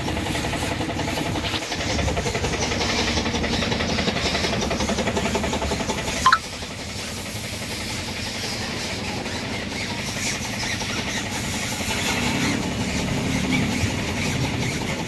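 A motor running steadily with an engine-like drone, broken by one brief sharp knock about six seconds in.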